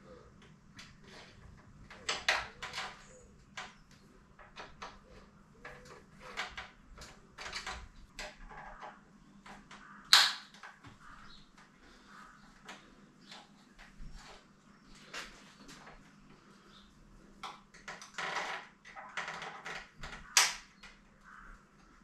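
Irregular clicks, knocks and clatter of hand tools and bicycle parts being handled while a bike is taken apart, with the sharpest knocks about ten seconds in and near the end.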